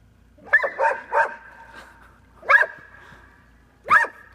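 Dog barking at a duck decoy: a quick run of three barks, then two single barks.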